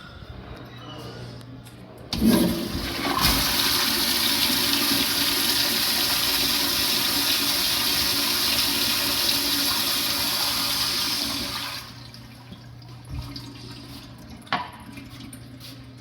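Toilet flushing: about two seconds in, the water rushes in suddenly and loudly and runs steadily for about ten seconds, then dies away fairly quickly. Two short knocks follow in the quieter aftermath.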